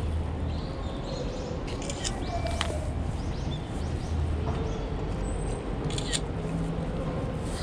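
Outdoor open-air ambience with a steady low rumble of wind on the microphone, a few sharp clicks and some faint, short high chirps.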